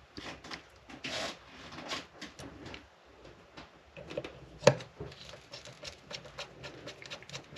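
Small clicks, taps and light scraping of hands working on a toy train locomotive's metal and plastic parts while a truck is being fitted back on, with one sharper click a little past halfway.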